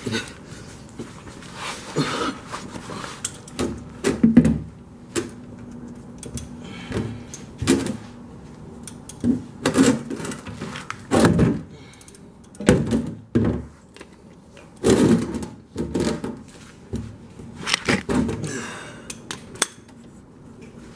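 Hand tools clanking and knocking against the underside of a car as a wrench is worked loose at the oil drain point during an oil change: irregular metal knocks, clicks and short scrapes.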